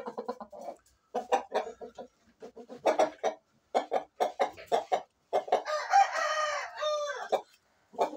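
Rooster clucking in short bursts, then one long crow of about two seconds a little over five seconds in, dropping in pitch at the end.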